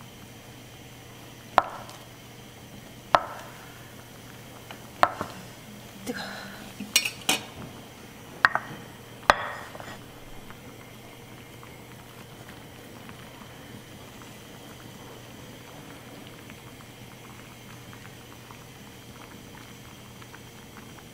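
A chef's knife cuts through a rolled omelette and knocks against a wooden cutting board: about seven sharp knocks over the first ten seconds, one every second or two. After that only a faint low hum remains.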